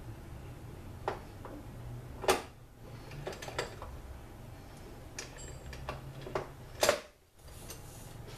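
Metal clicks and knocks from a TH400 transmission clutch drum being lifted, turned and set back onto its support shaft, with two louder clunks, one a couple of seconds in and one near the end, over a steady low hum.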